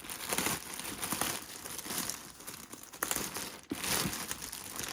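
Packaging crinkling and rustling in quick, irregular crackles as a parcel item is unwrapped by hand.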